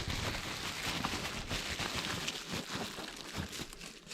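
Crinkling and rustling with many small clicks: packaging and plastic parts handled as a replacement Roomba side-brush motor module is brought out.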